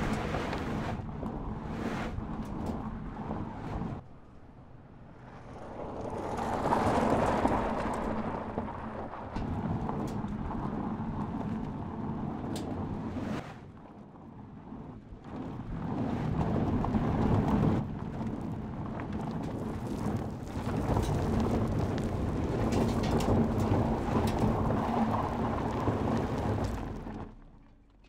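Mercedes-Benz C-Class All-Terrain driving off-road on a dirt track: a loud, noisy rumble of tyres on loose dirt and the engine underneath, swelling and dipping several times, then fading out near the end.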